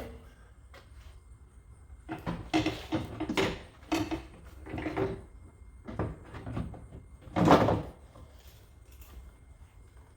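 Clunks and knocks of a metal truck side step being lifted and hung on the mounting studs under the cab, a cluster of bumps over several seconds with one louder knock near the end.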